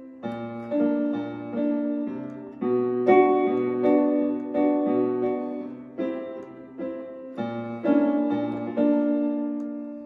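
Electronic keyboard played with a piano sound: an instrumental passage of chords struck over a bass line, each decaying before the next. Near the end the last chord is held and fades away.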